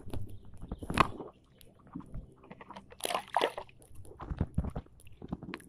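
Water sloshing and splashing with irregular knocks while a freshly caught red tilapia is handled and put into a net keepnet standing in the shallows. The strongest splashes come about a second in and again between three and five seconds in.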